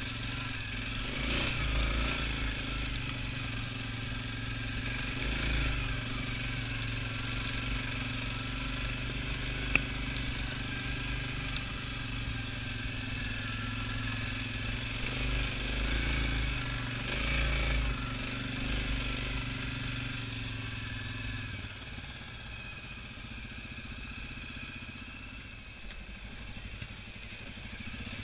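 Single-cylinder ATV (quad) engine running at low speed on a rough rocky climb, swelling and easing with the throttle, with rattling over the rocks. It drops quieter for the last several seconds.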